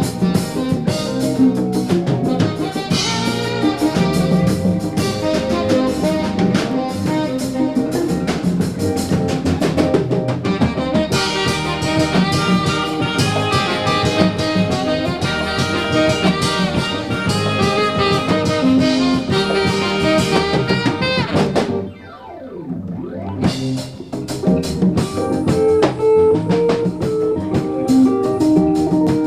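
A live band playing a Nigerian-style jazz-funk instrumental, driven by drum kit and percussion, with guitar. About two-thirds of the way through, the sound briefly drops out with a falling sweep before the band comes back in.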